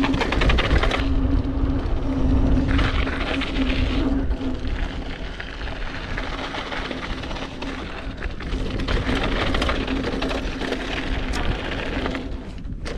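Mountain bike rolling fast down a loose dirt trail, heard from a helmet or bike-mounted GoPro: wind buffeting the microphone and tyre rumble over the dirt, with small knocks from the bumps. A steady humming buzz comes and goes over it.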